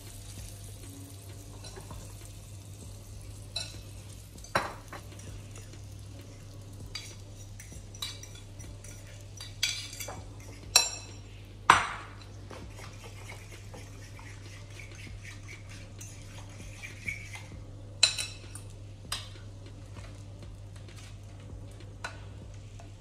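Kitchen utensils clinking and knocking against ceramic bowls and plates, about a dozen sharp clinks, the loudest about twelve seconds in. Underneath is a faint sizzle of egg and bread frying in the pan and a steady low hum.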